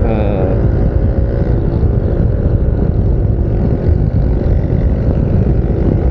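Yamaha NMAX 155 scooter's single-cylinder engine running steadily on the move, under heavy wind rumble on a helmet-mounted lavalier mic that has no windscreen.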